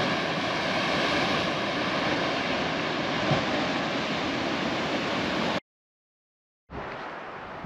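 Sea surf washing and breaking against a rocky volcanic shoreline: a steady rush that cuts off suddenly about five and a half seconds in. After a second of silence, quieter wind noise on the microphone begins.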